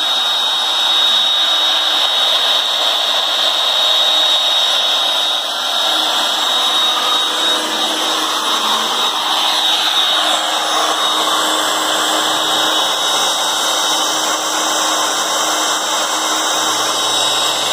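Porter-Cable 7518 router motor running steadily at speed as the CNC router's spindle, with a steady high-pitched whine.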